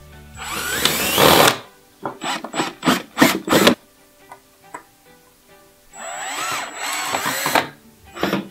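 Small cordless drill driving screws through pre-drilled holes into the solid-pine chair seat. A run of about a second comes first, then several short trigger bursts, then another run of about a second and a half near the end.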